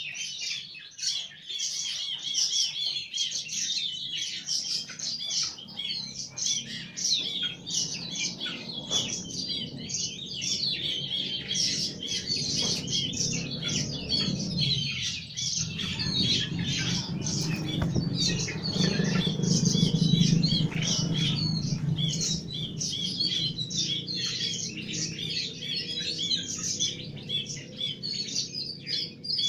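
Many small birds chirping and twittering at once, a dense, continuous chatter typical of a flock or aviary at feeding time. A low rumble builds up in the middle and is loudest about twenty seconds in, then fades.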